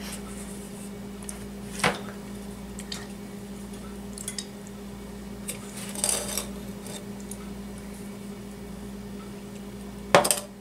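A few scattered knocks and clinks as a tumbler is dipped into a bowl of sugar and pressed onto cookie dough on a metal baking sheet, the loudest about two seconds in, with more near the middle and just before the end. A steady low hum runs underneath.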